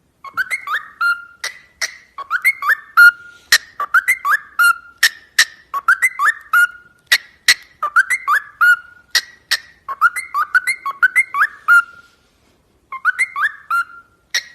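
A bird whistles the same short phrase over and over, about every two seconds: a few quick rising notes ending on a held note. Sharp clicks are mixed in, and there is a brief pause near the end.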